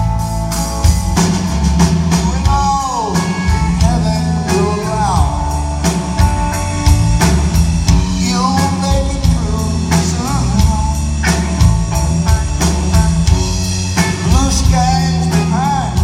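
Live rock band playing a slow song: an electric guitar plays lead lines with bent notes that rise and fall, over bass guitar and a steady drum beat.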